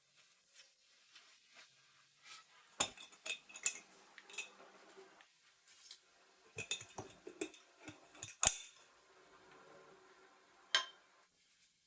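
Kitchen utensils and dishes clinking and knocking: a scatter of light clicks and clinks with quiet handling noise between them. The loudest clink comes about eight and a half seconds in, and a last sharp one comes near the end.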